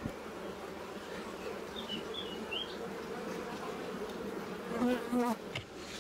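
Honeybee colony buzzing steadily over a frame lifted from the open hive, with two brief, louder buzzes near the end.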